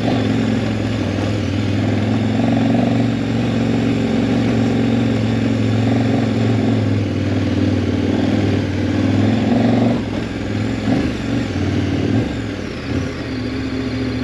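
KTM 1190 Adventure's V-twin engine running at a steady throttle on a dirt trail. About ten seconds in, the engine note eases off and turns uneven.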